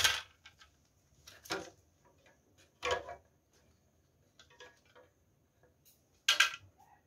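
Scattered clicks and light metallic clinks of wiring and small parts being handled and pulled loose inside a LiFePO4 battery's metal case. Four louder clicks come at the start, about a second and a half in, about three seconds in, and near the end, with fainter ticks between.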